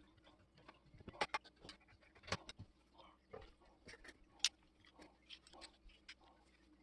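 Irregular light clicks and taps, with a few sharper knocks about a second in, a little past two seconds and around four and a half seconds, as of parts or tools being handled on a workbench.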